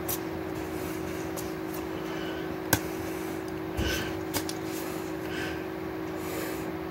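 A steady low hum, broken by a few sharp slaps and taps of hands striking together while signing; the loudest is nearly three seconds in.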